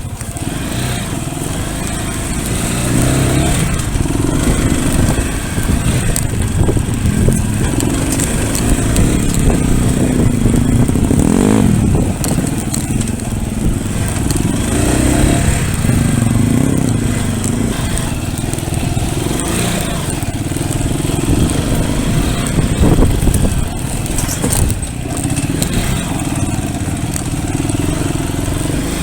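Pit bike engine running while riding, revs rising and falling repeatedly with the throttle.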